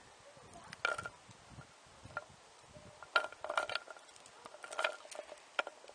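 Stainless steel link chain clinking as it is handled and measured out: a few short metallic clinks, some in quick clusters, at irregular moments.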